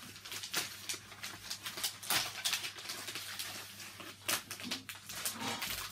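Plastic sweet packaging crinkling and rustling in irregular crackles as a pack of individually wrapped marshmallows is handled and opened.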